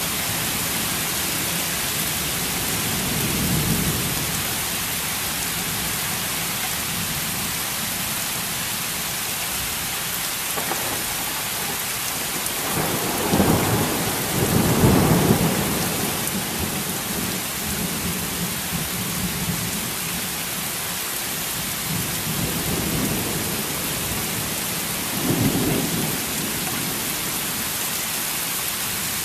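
Thunderstorm: heavy rain falling steadily, with rolls of thunder over it. There is a low rumble a few seconds in, the loudest peal from about the middle, and two shorter rumbles near the end.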